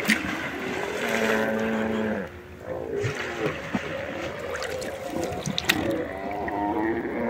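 A whale surfacing and blowing close to a kayak, with water lapping and dripping at the hull and scattered small clicks. Two long, steady held tones stand out, one in the first two seconds and another near the end.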